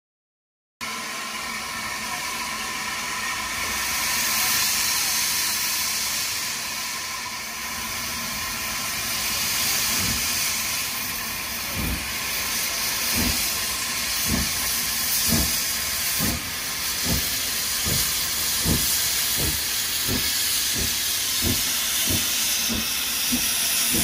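Hunslet Austerity 0-6-0ST saddle-tank steam locomotive pulling away. A steady hiss of steam from the open cylinder drain cocks starts about a second in. From about ten seconds in come exhaust chuffs, slow at first and quickening to nearly two a second as the train gathers speed.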